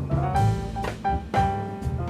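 Background music: jazzy instrumental with piano, bass and a drum kit keeping a steady beat.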